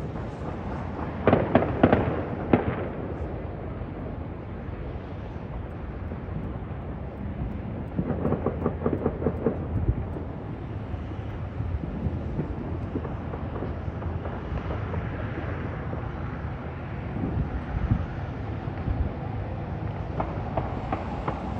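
Fireworks going off in clusters of sharp bangs about a second in, then a run of rapid crackling around eight seconds in, over a steady low rumble.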